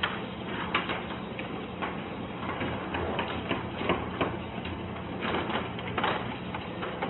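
Electric garage door opener lowering a sectional overhead garage door: a steady motor hum with irregular clicks and clacks as the door rolls down its tracks.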